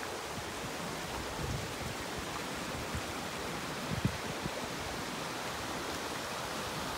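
Creek water rushing over rocks and small cascades, a steady hiss. A few soft low thumps sound over it, the clearest about four seconds in.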